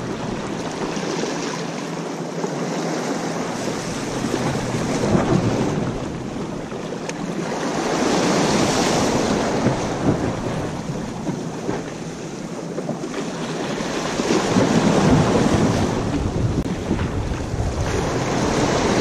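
Ocean waves washing against jetty rocks, the surf rising and falling in surges every few seconds, with some wind noise on the microphone.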